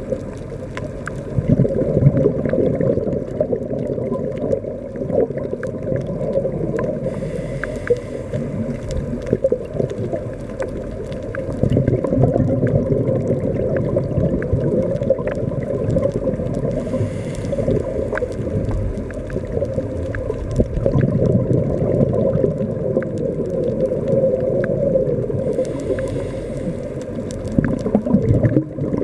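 Muffled underwater sound from a scuba diver's camera in its housing: a steady low gurgling of regulator bubbles with scattered small clicks, and a fainter hiss of breath about every nine seconds.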